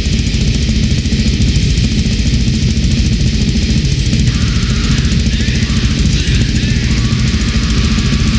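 Loud, dense grindcore/noisecore music: heavily distorted guitar over rapid, relentless drumming, with no let-up.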